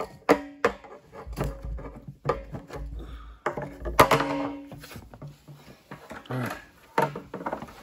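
A long extension rod and the fitting on its end knocking and scraping against the bung hole of a hollow plastic drum. Several sharp knocks, a few of them ringing briefly, between rubbing and handling noises.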